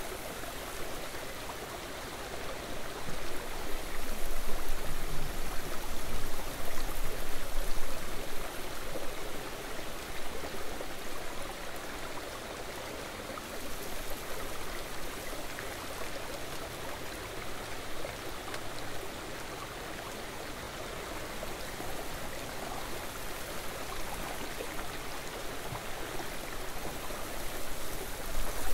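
Steady rushing of a flowing stream, louder for a few seconds between about three and eight seconds in.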